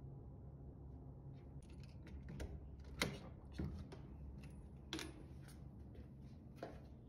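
Hotel room door being unlocked and opened: a handful of sharp clicks and knocks from the lock and lever handle, the loudest about three seconds in and another about five seconds in.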